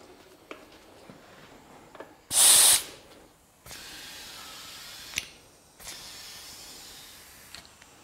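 Compressed air from a shop air hose and chuck filling the inner tube of a newly mounted motorcycle tyre. A short, loud blast of hissing air comes about two seconds in, followed by two spells of softer, steady hissing, each about two seconds long, as the tube is brought up towards 45 to 50 psi.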